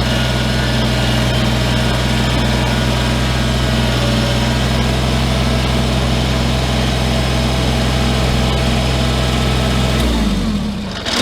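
Old tractor engine running steadily, then shut off about ten seconds in, its pitch falling as it winds down and stops.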